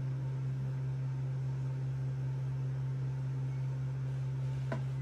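A steady low hum with a faint hiss under it, and one light tap near the end as a small object is set down on a desk.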